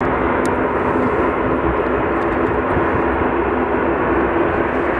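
Boeing 777-300ER's twin GE90 turbofan engines at take-off thrust on the runway: a steady, loud roar with a faint droning hum running through it.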